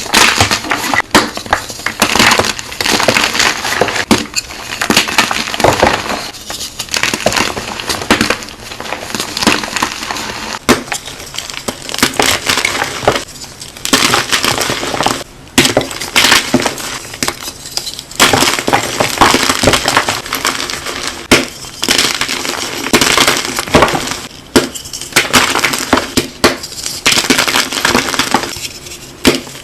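Brittle, crunchy material being crushed: a dense run of crackling and crunching with a few short pauses.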